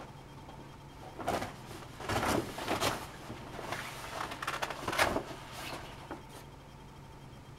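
Cloth rustling as hospital bed linens are handled, in several irregular bursts, over a steady low hum.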